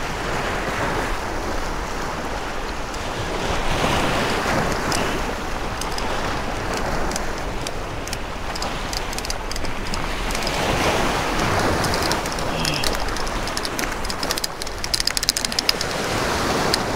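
Surf washing and splashing over jetty rocks, rising and falling with each wave, with wind buffeting the microphone. A quick run of sharp clicks near the end.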